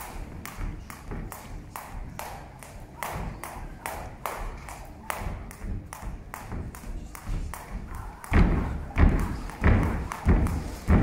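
A boxer's feet hitting a ring canvas: light, sharp taps in an even rhythm, about two or three a second. From about eight seconds in they give way to heavy thuds, roughly every two-thirds of a second, as he jumps with his knees high.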